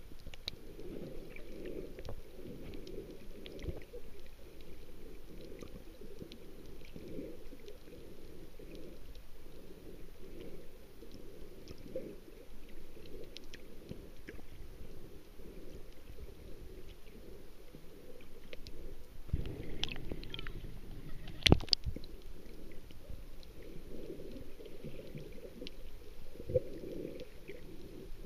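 Muffled underwater water noise: a low, shifting rumble with faint scattered clicks. There is a brief swell about 20 seconds in and one sharp knock a moment later.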